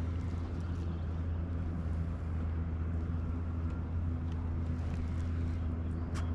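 Boat motor running steadily at one constant low pitch.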